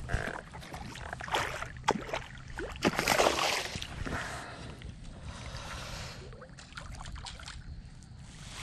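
A hooked fish splashing and thrashing at the water's surface, with water sloshing as a landing net is pushed in after it. Sharp clicks and knocks run through it, and the biggest splash comes about three seconds in.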